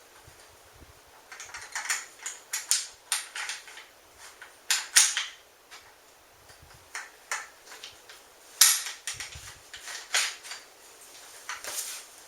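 Metal parts of a Mossberg 500 pump shotgun clicking and clacking as they are handled and fitted back together. The clicks come irregularly, the sharpest about five seconds in and again near nine seconds.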